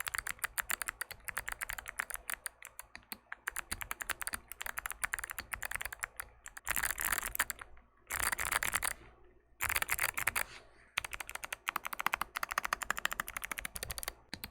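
Mchose Z75 mechanical keyboard with clicky Firefly switches being typed on fast: a dense stream of sharp clicks. A few brief flurries of even faster key presses come around the middle.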